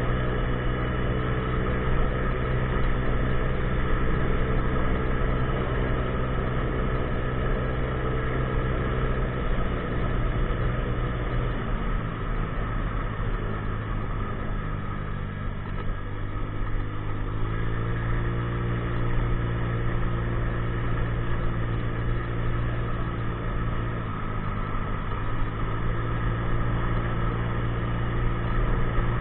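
A 50cc scooter's engine running under way: its pitch holds steady, falls away about ten seconds in as the throttle eases off, and climbs back around seventeen seconds in as it accelerates again. A second short drop and pick-up comes about twenty-four seconds in.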